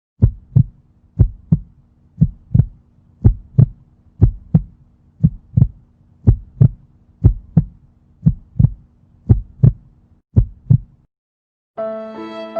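Heartbeat sound effect: eleven paired low thumps (lub-dub), about one pair a second, over a faint steady hum. It stops near the end, and sustained string music begins.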